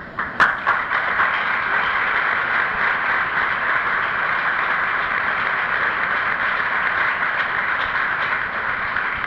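Audience applauding: a few scattered claps at first, then a steady, even applause.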